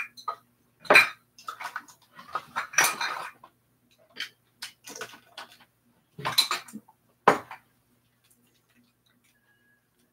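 Hard objects clattering and knocking together as they are rummaged through and handled: an irregular run of sharp clunks and rattles that stops about seven and a half seconds in.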